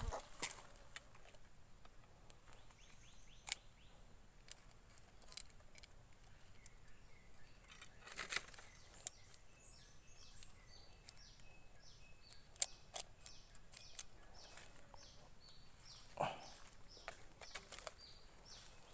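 Faint outdoor ambience: a steady high whine underneath and, from about halfway, a rapidly repeated high chirping call, several notes a second. Scattered rustles and light knocks from moving through grass and brush.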